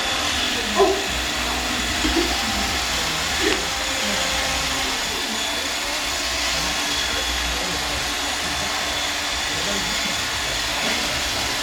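Roomba robot vacuum running steadily as it cleans, a constant whirring with a steady high whine.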